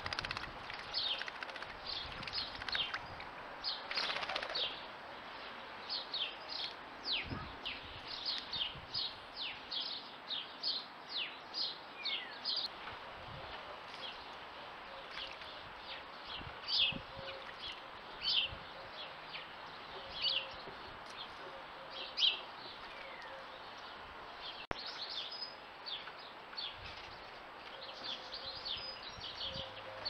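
Small songbirds calling: a long run of short, sharp chirps that slide downward, several a second at the busiest, thinning out in the second half, over a faint steady outdoor hiss.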